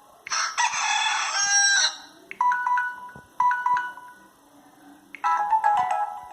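Samsung GT-S5360 phone alarm tone playing a recorded rooster crow, about one and a half seconds long. Two short electronic tones follow, and about five seconds in a quick chiming melody of stepped notes begins.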